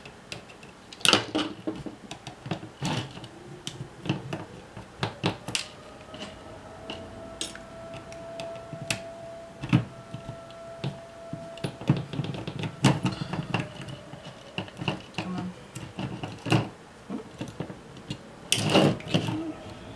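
Small screwdriver and fingers working on a JVC camcorder's metal-and-plastic tape mechanism: scattered light clicks, taps and scrapes of tiny parts, irregular and close.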